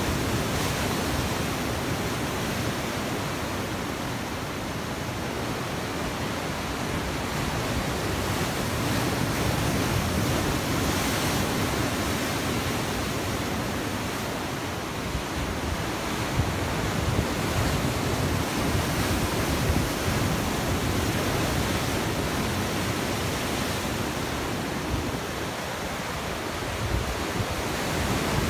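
Sea waves breaking over rocks and a stone pier wall: a continuous rush of churning white water that swells and eases as successive waves break and drain away.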